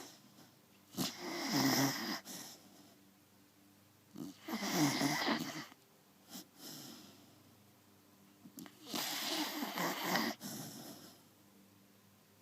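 Beagle snoring: three long snores about four seconds apart, each lasting one to two seconds, with a brief one between the second and third.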